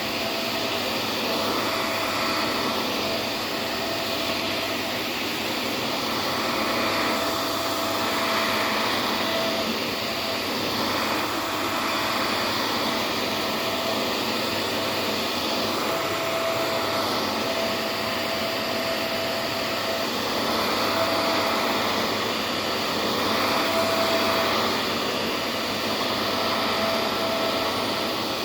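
Vacuum cleaner running steadily: a dense rushing of air, with a thin motor whine that fades in and out. The level swells and dips slightly every few seconds.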